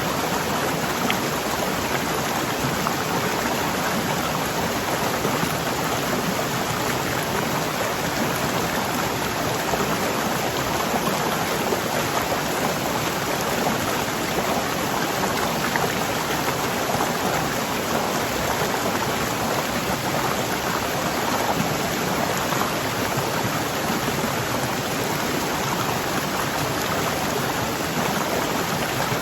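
Waterfall: a steady, unbroken rush of fast-flowing water.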